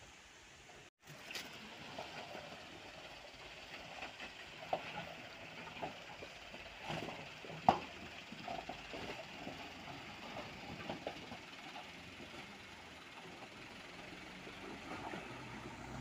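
Mitsubishi Canter dump truck working through mud: its diesel engine running under irregular clanks and knocks from the chassis and tipper body, with one sharp knock about eight seconds in.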